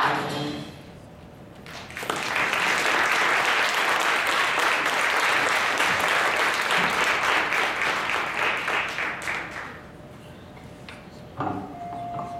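Audience applauding at the end of a children's choir song: the last sung chord cuts off at the start, and about two seconds later clapping breaks out, lasts around eight seconds, then dies away.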